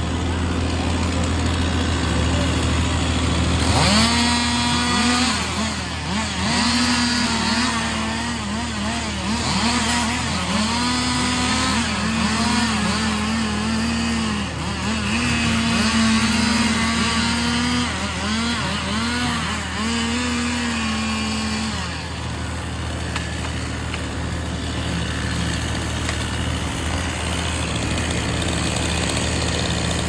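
A chainsaw revving up and dipping again and again as it cuts through a log, starting about four seconds in and stopping after about twenty seconds, over the steady running of the grapple truck's engine.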